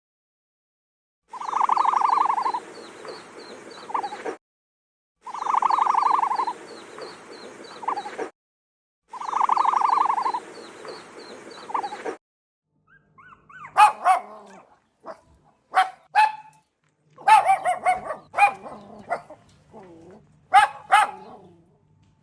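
The same three-second animal call repeated three times, then a dog giving short, sharp yips and barks in irregular bursts.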